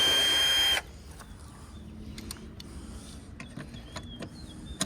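Cordless drill running for about a second as it backs out a panel screw, with a steady high whine that cuts off abruptly; scattered light clicks of screws and panel handling follow.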